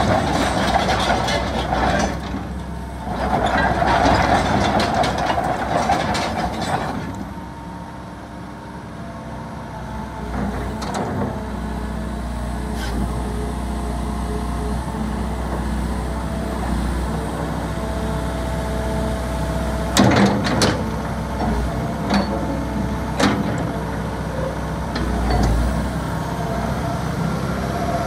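Hitachi EX120-3 12-ton tracked excavator running, its diesel engine and hydraulics working as it moves. The first seven seconds are louder, then the machine settles to a steady run with a few sharp metallic clanks about twenty seconds in.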